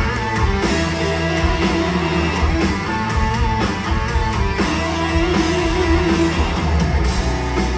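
Live heavy metal band playing an instrumental passage: electric guitars over bass and drums, loud and continuous, with no vocals.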